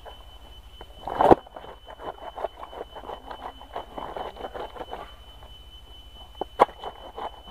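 Clothes being washed by hand on a concrete slab: a wet cloth slapped down hard about a second in, then a run of short wet rubbing and scrubbing strokes as it is worked by hand, and another sharp slap near the end.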